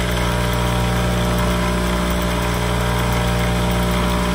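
Bench buffer motor running steadily with a constant hum, its spinning buffing wheel polishing a Glock 19's polymer frame held against it.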